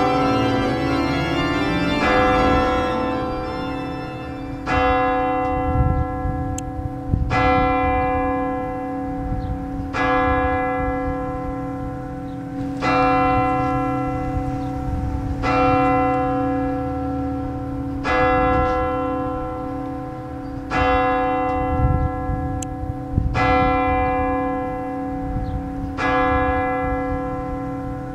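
An organ chord dies away, then a single church bell tolls slowly, about once every two and a half seconds, nine strokes in all, each left to ring down. A low rumble runs underneath.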